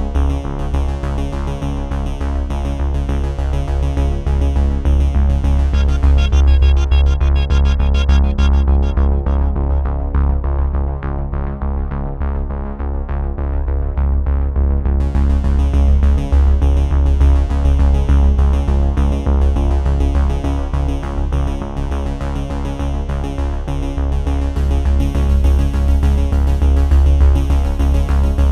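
Electronic background music with synthesizer, a heavy bass line and a steady beat; about a third of the way in the high end is filtered away for several seconds, then comes back suddenly.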